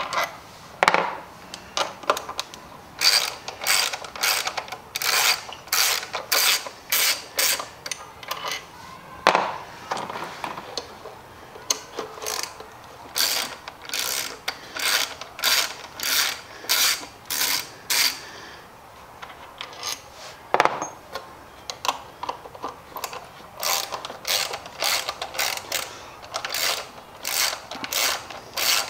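Hand ratchet wrench clicking as bolts on the throttle body are turned, in runs of about two clicks a second with short pauses between runs.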